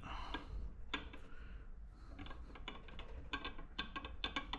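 Irregular small metallic clicks and clinks from the gears and counterbalance shaft inside the open crankcase of a Yanmar L100-clone air-cooled diesel, as they are turned and shifted by hand to line up the counterbalance gear's timing marks. The clicks come more often in the second half.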